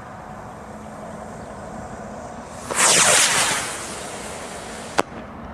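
Homemade model rocket motor igniting about three seconds in: a sudden loud rushing hiss that falls in pitch and fades as the rocket climbs away. About two seconds later comes a single sharp pop, the ejection charge firing to push out the motor and parachute.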